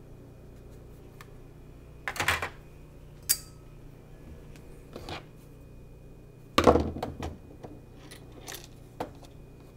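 Plastic cover and body of a Singer Simple sewing machine being handled on a workbench: a few hard plastic knocks and clatters, loudest about two seconds in and again about seven seconds in, with single clicks between.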